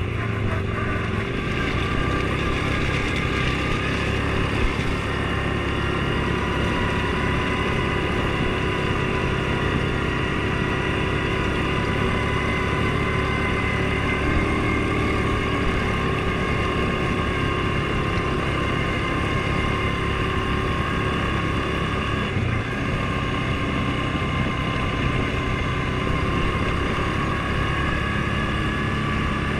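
Off-road vehicle engine running steadily under way, with a constant high whine over its low drone.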